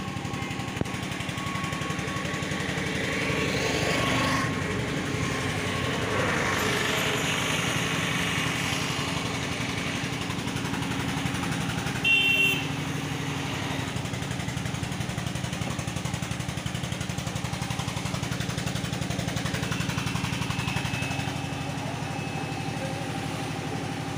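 An engine idling steadily, with traffic noise swelling and fading twice in the first half. A short, high-pitched beep sounds about halfway through.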